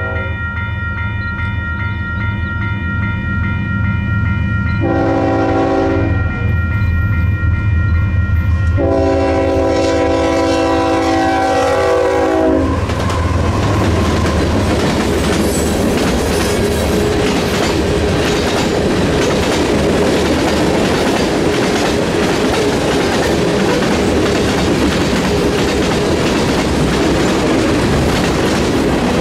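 Union Pacific diesel locomotive air horn blowing a short blast and then a long one for the grade crossing, the long one dropping in pitch as the locomotive passes. Under it are the steady ding of the crossing's WCH Type 3 electronic bell and the diesel engines' rumble. From about halfway through, the freight cars roll past with a continuous clickety-clack of wheels on the rails.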